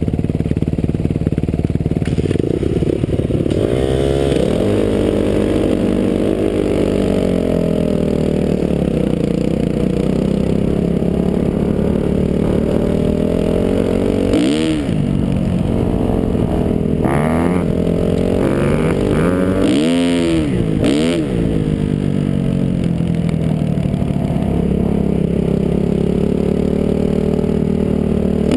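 Dirt bike engine heard from on board the moving bike, pulling away and running down a gravel road. Its pitch climbs as it gets going, then rises and drops sharply several times as the rider works the throttle and gears, most clearly about halfway through and again a little later, over a clattering rattle.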